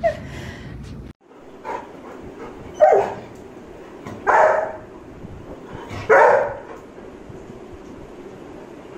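Large golden-coated dog barking at its reflection in a mirror: one small bark, then three loud barks about a second and a half apart.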